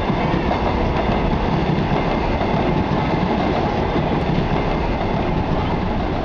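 Electric suburban train passing along the tracks, a steady noise of its wheels running on the rails.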